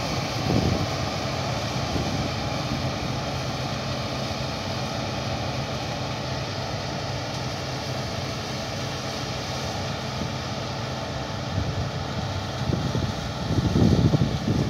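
Claas Dominator 88 combine harvester working a grain field, its engine and threshing machinery making a steady distant drone. Wind buffets the microphone near the end.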